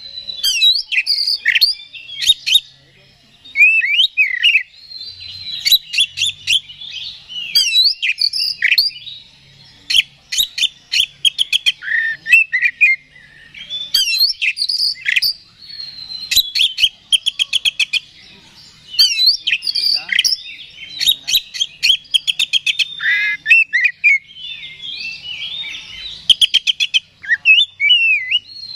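Oriental magpie-robin (kacer) in full, fired-up song: a continuous run of varied whistled and slurred phrases, broken by fast rattling trills and short pauses. This is the kind of heated 'gacor' song played as a lure to rouse other magpie-robins.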